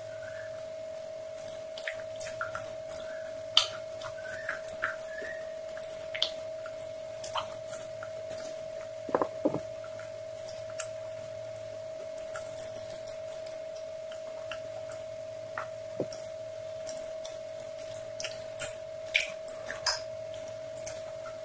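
Close-miked irregular soft clicks and crackles, a few sharper than the rest, over a steady high electrical whine from the recording chain.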